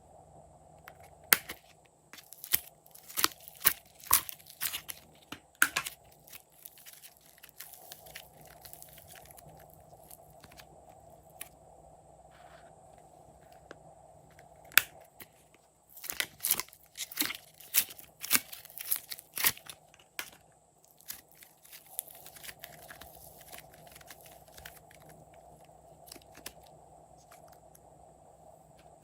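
Slime being squeezed and pressed by hand, giving sticky crackling pops and clicks in two bursts of several seconds each, over a faint steady hum.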